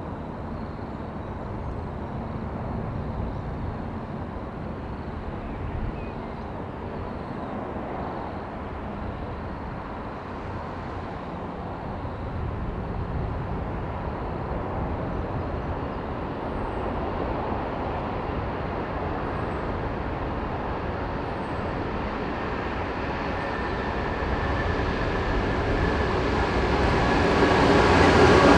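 A V/Line N-class diesel-electric locomotive approaching with a passenger train: a steady rumble of engine and wheels that grows louder over the last few seconds as it draws near.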